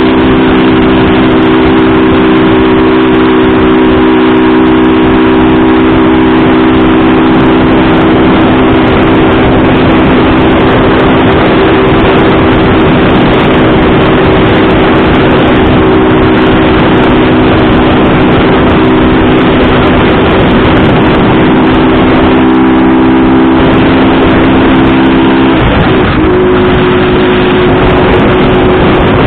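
Motor vehicle running at a steady speed, a loud even rush of noise with a steady drone that changes pitch about 25 seconds in.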